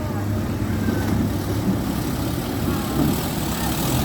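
Off-road vehicle engine running steadily with a low drone, faint voices in the background.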